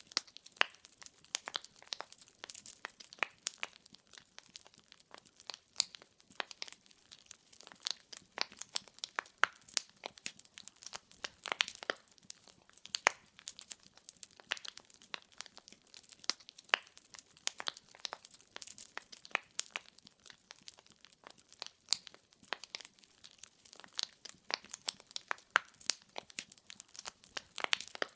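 Firewood burning in a fireplace, crackling steadily with many sharp, irregular pops and snaps over a faint hiss.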